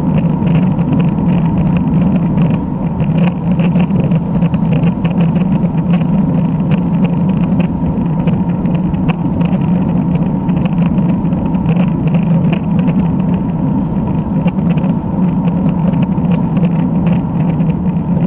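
Steady rushing of wind and road noise on the microphone of a camera riding along on a road bicycle.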